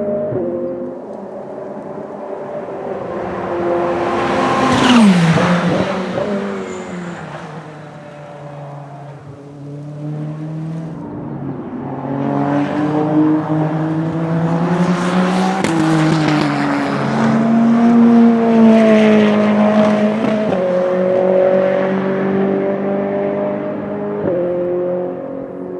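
GT3 race car engines running at speed on track, their pitch stepping up and down with gear changes. One car passes close about five seconds in, its engine note falling sharply as it goes by, and the sound swells again from about twelve to twenty seconds in.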